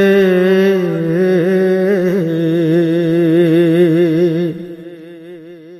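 Male singer of a Bengali Islamic ghazal holding a long, wavering note over a steady hummed vocal drone, with no drums. The sound fades out about four and a half seconds in.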